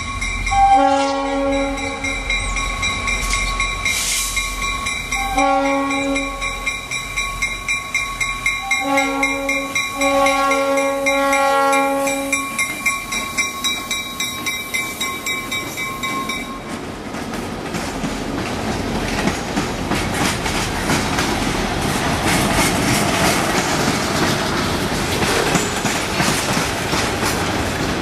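Grade-crossing bell ringing while the lead EMD GP38-2 freight locomotive blows its horn in the crossing pattern: two long blasts, a short and a long. The bell stops about 17 seconds in, and the freight cars' wheels clatter over the rail joints as the train rolls by.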